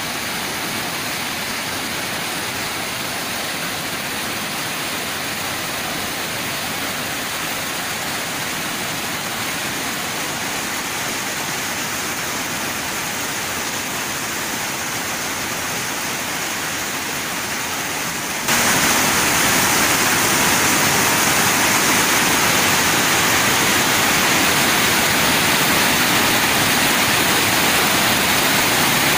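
Floodwater rushing, a steady roar of water; it jumps suddenly louder about two-thirds of the way through.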